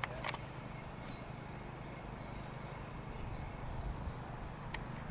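Outdoor ambience: a steady low rumble of wind and movement on the microphone, with a few faint high bird chirps, one about a second in and several near the end, and a few brief clicks.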